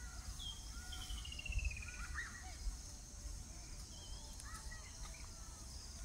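Wild birds calling in the trees: a short whistled note, then a rapid run of notes falling steadily in pitch for about a second, followed by scattered short chirps.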